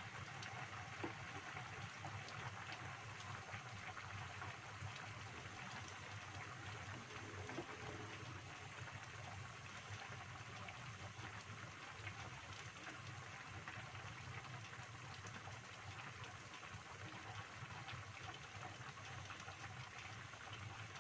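Chicken-feet and vegetable soup bubbling in a wok over a gas burner: a steady hiss with many small pops.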